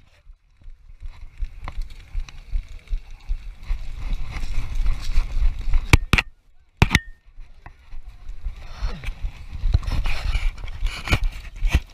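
Airsoft gun shots: a single sharp crack about two seconds in, two more around six and seven seconds, then a quick scatter of cracks near the end. Under them, low rumbling and thudding from the player moving with the camera.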